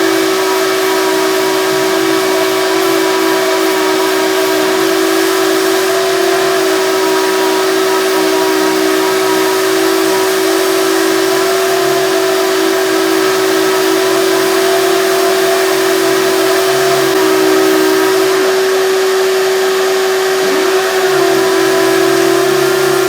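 Vacuum cleaner running steadily with a high motor whine and airy rush, pulling dust through the hose of a 3M 28502 DA vacuum sander. A lower hum joins near the end.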